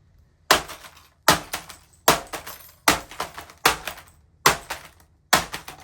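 Seven hard blows, about 0.8 s apart in a steady rhythm, smashing a microwave-damaged laptop, its plastic and glass cracking and rattling with each strike.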